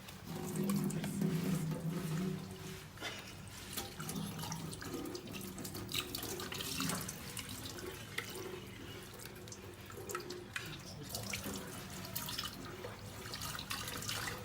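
Water running and splashing in a sink as raw fish is washed by hand, with many small irregular splashes and knocks.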